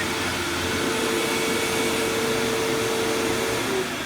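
Hoover Windtunnel Supreme upright vacuum cleaner, an old 12-amp machine, running with a loud steady motor hum. Near the end the motor is switched off, and its tone drops in pitch as it starts to wind down.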